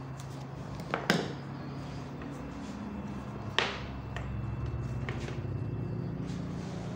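Sharp plastic clacks and taps of rigid PVC pieces being handled and set down on a tabletop, the loudest about a second in and a few lighter ones after, over a steady low hum.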